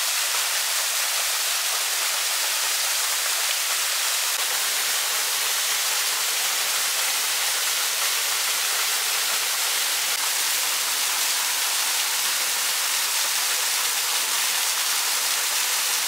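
A small 6-metre waterfall pouring steadily: an even, unbroken rush of falling water, bright and hissy with little deep rumble.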